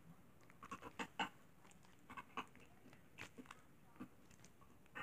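Slime being squeezed and kneaded by hand, giving faint, irregular little pops and squelches, some close together, others spaced apart.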